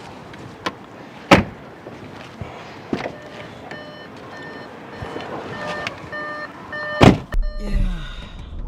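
A few sharp knocks and clicks, then a car chime beeping rapidly for a few seconds. About seven seconds in a car door thumps shut, and the sound turns to a muffled low hum, as heard from inside the cabin.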